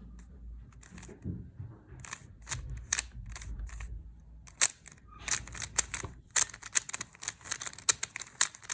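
Plastic 3x3 Rubik's cube layers being turned by hand, clicking and clacking. The turns come a few at a time at first, then in a quick run of rapid clicks over the last few seconds, as a sequence of moves for positioning the last-layer corners is carried out.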